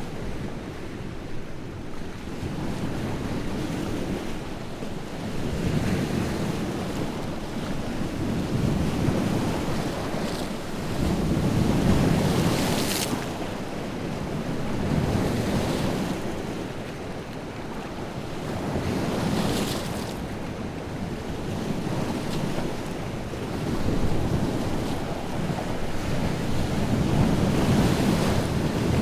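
Wind-driven lake waves breaking on the shore, a steady wash that swells and falls every few seconds, with two sharper splashes around the middle. Wind gusts over the microphone.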